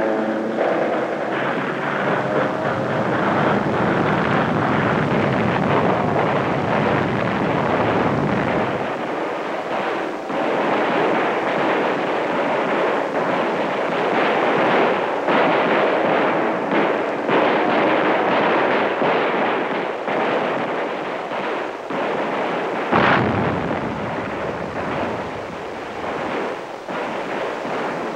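Battle noise: a continuous din of explosions and gunfire, with deep rumbling through the first several seconds and one loud blast about 23 seconds in.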